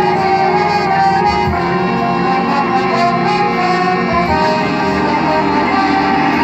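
High school marching band brass section playing held chords, with a few low drum hits underneath.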